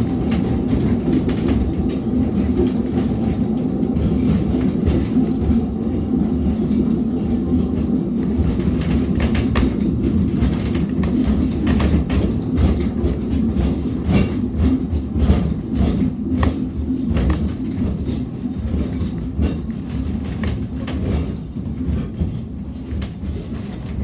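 Narrow-gauge railway carriage running along the track, heard from inside: a steady low rumble of wheels on rail, with frequent clicks and clatter from the wheels and running gear, busiest in the middle.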